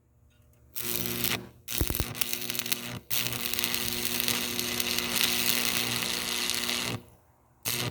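Stick welding arc: the rod is struck and sputters twice, then burns as a steady crackling arc for about four seconds over the welder's steady hum, cutting off near the end.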